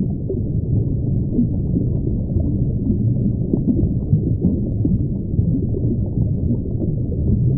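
Underwater ambience sound effect: a steady, muffled low rumble with small irregular blips scattered through it.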